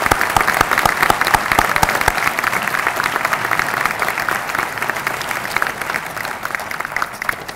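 Audience applauding, a dense patter of many hands, with a few loud close hand claps at the microphone in the first two seconds; the applause dies away near the end.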